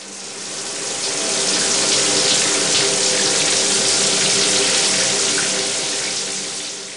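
Water running hard from a tap, a steady rushing hiss that fades in over the first couple of seconds and fades out at the end.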